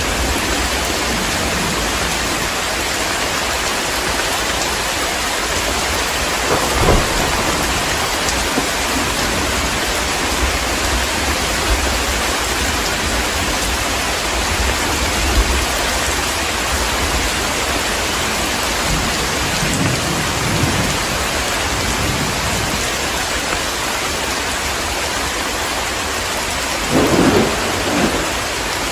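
Heavy rain falling steadily, with thunder rumbling three times: about seven seconds in, around twenty seconds in, and a louder roll just before the end.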